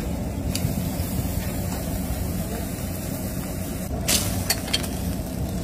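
Steady low mechanical rumble, with a short click about half a second in and a cluster of sharp clicks about four seconds in.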